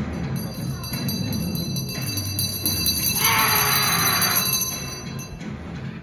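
Background music with high, bell-like jingling tones over a steady lower bed. About three seconds in, a loud hissing rush lasts just over a second.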